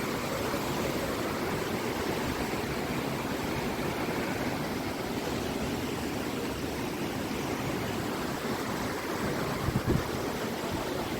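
Fast-flowing floodwater rushing in a steady, even roar of water. A couple of brief low thumps come near the end.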